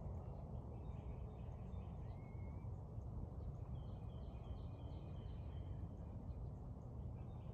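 Steady low background rumble with faint birds chirping over it: a short rising call about two seconds in, and a quick run of repeated notes around four to five seconds in.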